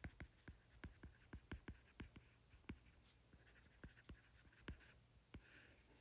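Faint, irregular ticks and taps of a stylus tip writing by hand on a tablet's glass screen, quick and dense for about three seconds, then sparser.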